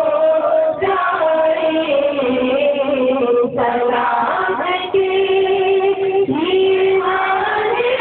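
Singing: one voice carrying a slow melody in long held notes that slide up and down between pitches.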